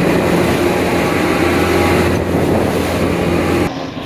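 Motorboat engine running steadily under way, with wind rushing on the microphone; it cuts off suddenly near the end.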